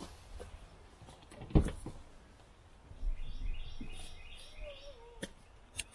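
A single knock about one and a half seconds in, as the vehicle's door is opened, and a bird chirping in a quick run of repeated notes around the middle. A couple of short clicks near the end.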